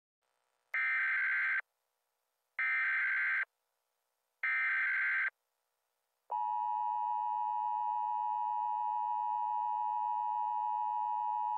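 Emergency Alert System broadcast tones: three short warbling data bursts about a second apart, then, about six seconds in, a long steady attention tone that begins and holds.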